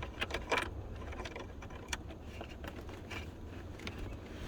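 Scattered light clicks and rattles of small objects being handled, over a steady low rumble.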